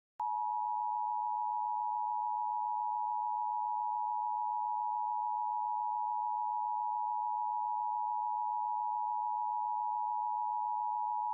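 Emergency Alert System attention signal: one steady electronic tone just under 1 kHz, starting just after a short silence and holding at an even level without a break.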